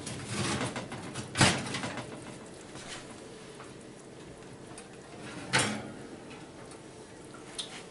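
Metal oven rack and a glass baking dish knocking and rattling as the dish is taken out of the oven: two sharp knocks, about a second and a half in and again about five and a half seconds in, with a lighter click near the end.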